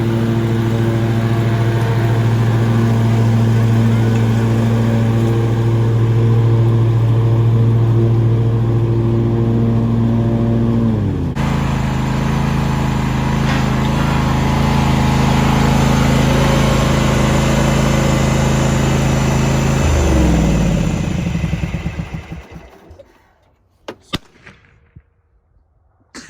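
Husqvarna GTH 2654 riding mower's engine running steadily at speed, then dropping to a lower speed about eleven seconds in. About twenty seconds in it is shut off and winds down to a stop, followed by a couple of faint clicks.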